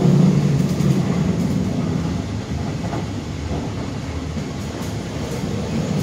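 Passenger train running, heard from inside the carriage: a steady rumble of wheels on the rails that eases off a little after about two seconds.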